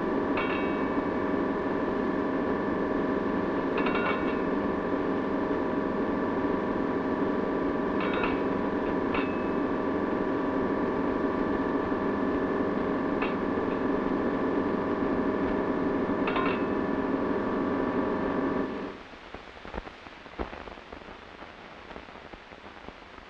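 Tugboat engine room: the engine runs with a steady drone and several held tones, and the ship's engine-order telegraph gives short ringing signals six times at uneven intervals. The engine sound cuts off abruptly about 19 seconds in, leaving a faint background with a few clicks.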